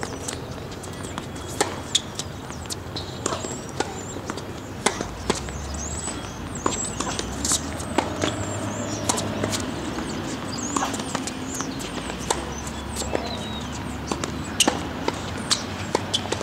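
Tennis balls being struck by rackets and bouncing on a hard court: a string of sharp pops and knocks at uneven gaps, as in play and ball-bouncing between points.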